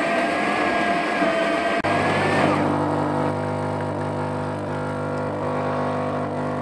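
Krups bean-to-cup espresso machine at work. For about two seconds its grinder motor whirs with a high whine. Then, after a click, it switches to a steady low buzzing hum from the pump as espresso pours from the spout into the cup.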